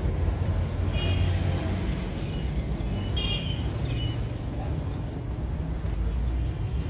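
Steady low vehicle rumble, with a few brief high-pitched tones about a second and three seconds in.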